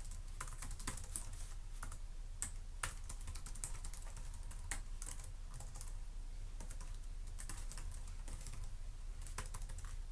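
Typing on a Lenovo ThinkPad E450 laptop keyboard: uneven runs of key clicks with short pauses between them, over a steady low hum.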